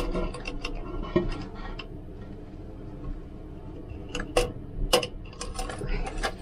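Light clicks and metallic clinks of a toilet flapper chain and its clip being handled inside the tank. A few sharp clicks come at the start, then a quieter stretch, then a quicker run of clicks in the second half.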